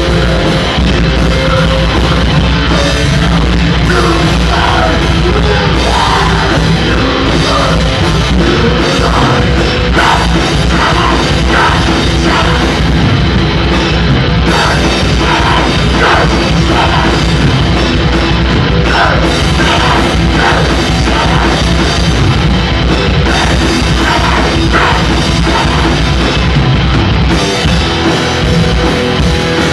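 Heavy metal band playing live: distorted electric guitar, bass guitar and drum kit, loud and continuous, with a wavering pitched melodic line over the top through most of the passage.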